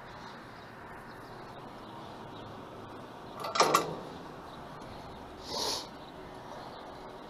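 A climber knocking against a painted metal ladder's rails and rungs, one sharp clank about halfway through, then a shorter, softer scuff about two seconds later, over a steady hiss.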